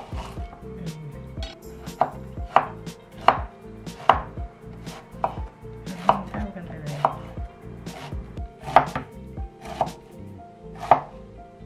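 Kitchen knife slicing a raw banana blossom heart on a wooden cutting board: a crisp cut ending in a knock of the blade on the board, about one stroke a second, unevenly spaced.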